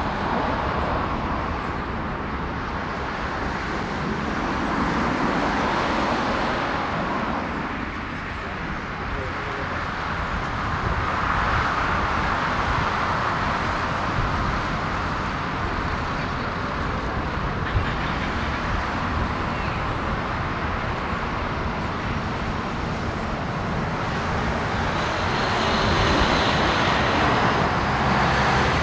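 Jet airliner engines at taxi power: a steady rumble and hiss that swells and eases a few times.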